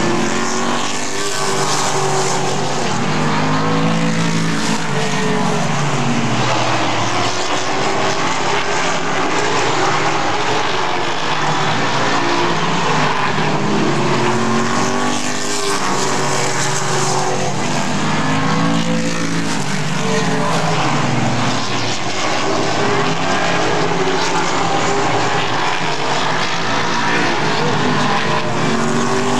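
A field of super late model stock cars racing, their V8 engines running hard. Several engine notes overlap and rise and fall in pitch every few seconds as the cars pass and go through the turns.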